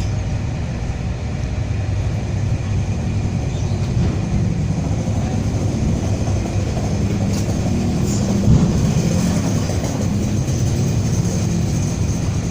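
A motor vehicle's engine idling steadily with a low rumble.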